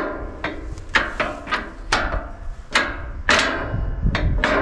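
A hammer striking metal, about ten irregular blows, each ringing briefly.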